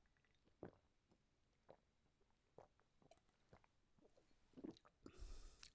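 Faint gulps and swallows of a man drinking down a glass of drink in one go, a few soft clicks about a second apart and a small cluster near the end, followed by a brief rush of noise.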